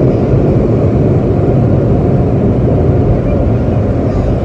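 Automatic car wash working on the car, heard from inside the closed cabin: a loud, steady, low noise without breaks.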